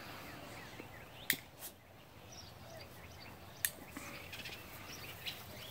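Faint bird chirps over low background noise, with a few short sharp clicks: two about a second and a half in and one more a little past the middle.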